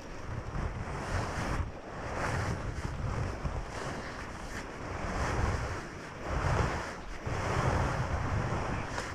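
Wind buffeting the microphone in uneven gusts, mixed with footsteps crunching through dry leaf litter.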